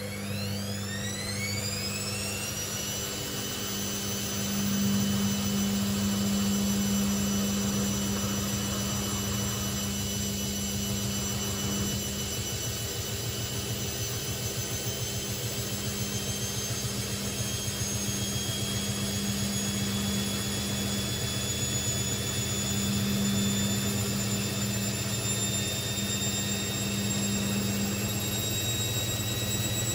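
Hoover VisionTech VTS715D21X washing machine's motor whining as the drum speeds up. The whine climbs quickly in pitch over the first few seconds, then keeps rising slowly over a steady low hum, as the drum gathers speed toward a spin.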